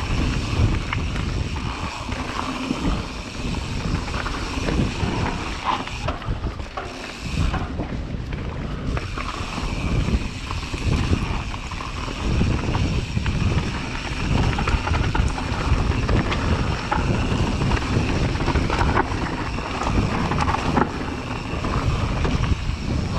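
Mountain bike riding fast down a dirt forest trail: wind rushing over the camera microphone, tyres rolling over dirt and leaves, and the bike rattling and knocking over bumps.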